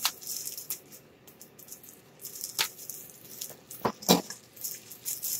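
Bubble wrap and plastic packaging rustling and crinkling as it is unwrapped by hand, with a few sharp crackles.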